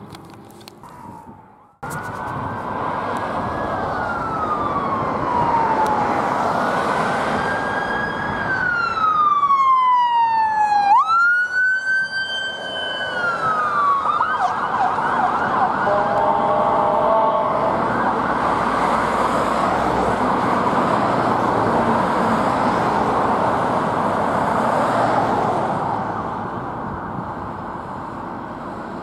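Ambulance siren on a code 3 run: a slow rising-and-falling wail that switches about halfway through to a fast yelp, fading near the end.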